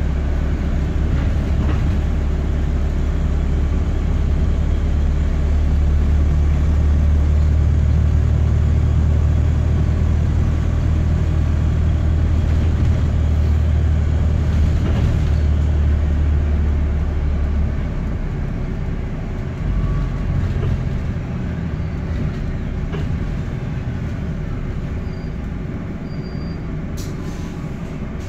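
Daimler-engined Wright StreetDeck double-decker bus under way, heard from the upper deck: a heavy, deep engine drone from a blowing (leaking) exhaust, which drops away about 18 seconds in as the bus eases off, leaving the lighter running and road noise.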